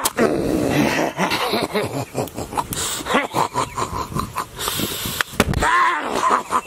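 A man making wordless, frantic vocal noises, his pitch jumping up and down and breaking off every moment, mixed with short sharp clicks and crackles.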